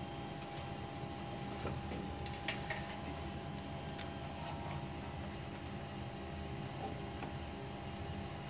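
Steady machine hum with a faint steady tone, typical of a printer's fans, with scattered light clicks and rustles as cables in the printer's wiring are handled.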